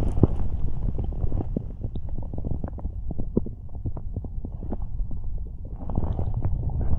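Human stomach rumbling and gurgling with digestion, a low continuous rumble broken by many small pops and clicks, easing off in the middle and building again near the end. The uploader puts it down to overeating fast food.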